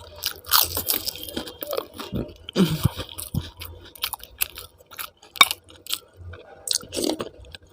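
Close-miked chewing of food, with irregular wet mouth clicks and smacks coming many times a second.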